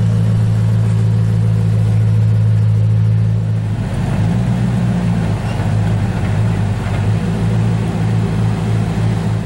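Koenigsegg CCXR Trevita's supercharged V8 idling with a steady low drone; about four seconds in the sound turns rougher and more uneven.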